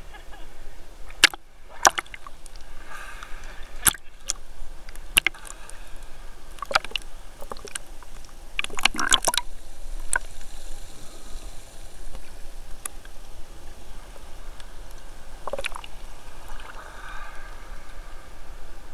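Seawater sloshing and splashing around a waterproof action camera held at the surface, dipping in and out of the water, with irregular sharp clicks and knocks.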